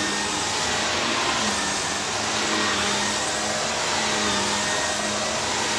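Vacuum cleaner running steadily as its floor head is pushed back and forth over carpet: a constant motor hum and rush of air.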